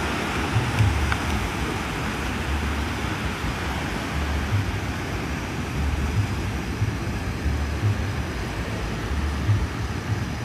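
Steady rush of sea surf, with wind gusting on the phone's microphone in low rumbling buffets every second or two.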